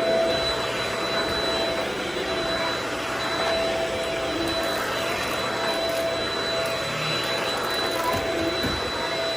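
Vacuum cleaner running steadily on a rug: an even rush of air with a constant high whine from the motor.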